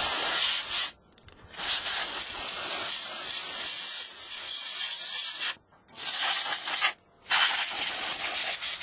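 Can of compressed air spraying in long hissing blasts into the open chassis of a CRT television to blow out built-up dust, stopping briefly three times.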